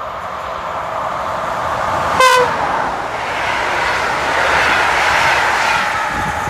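Electric locomotive's horn gives one short toot about two seconds in. The locomotive and its passenger coaches then pass close by, the running noise of wheels on rails swelling and then easing off.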